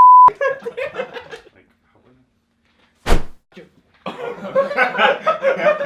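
A brief, loud, steady beep at the very start, then people talking and laughing, a single sharp thump about three seconds in, and more talking and laughter.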